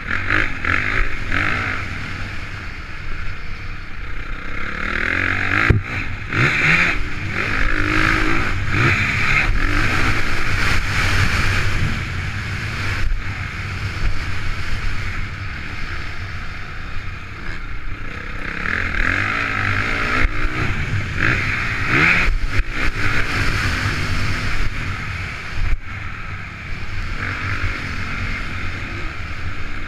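Honda CRF450 motocross bike's single-cylinder four-stroke engine being ridden hard on a dirt track, its revs rising and falling through the gears, with louder surges under throttle and a few sharp knocks from the bike over bumps. Heard from a camera on the rider's helmet.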